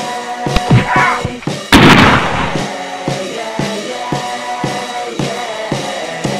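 Soundtrack music with a loud gunshot sound effect almost two seconds in, its noise dying away over about a second.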